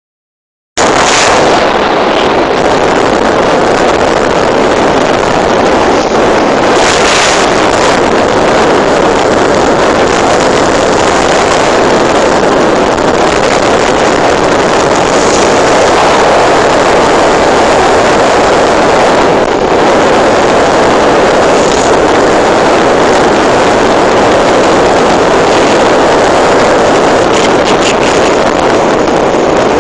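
Loud, steady rushing of wind and rough sea heard from a ferry's open deck, with a few brief sharper surges.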